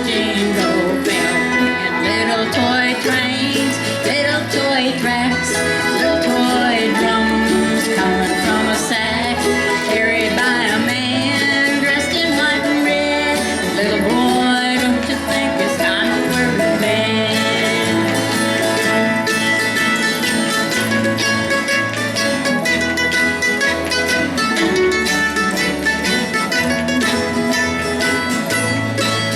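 Acoustic bluegrass band playing: guitar and other plucked strings over a bass line.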